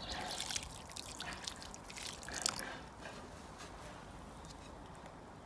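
Water soaking into freshly potted compost, crackling, trickling and dripping, with the busy crackle dying down after about two and a half seconds to a few faint drips.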